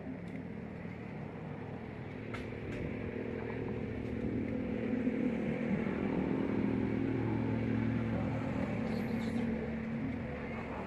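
A motor engine running nearby, with a steady hum that grows louder about four seconds in and eases off near the end.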